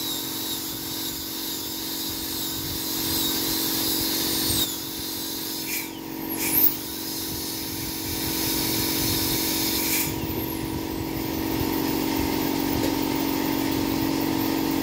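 Dental high-speed handpiece (drill) running on the front teeth with a high whine and hiss over a steady hum. It cuts out briefly about six seconds in and changes pitch again around ten seconds in as it slows and speeds up.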